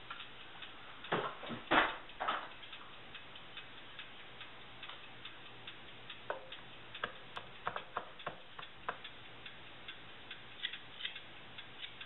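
Kitchen knife chopping fresh rosemary finely on a wooden cutting board: irregular light taps of the blade on the wood, with a few louder knocks about a second or two in.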